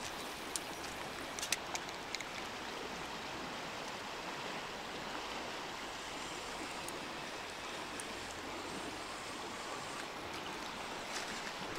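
Steady rushing of a river's current flowing past the bank, with a few light clicks in the first couple of seconds.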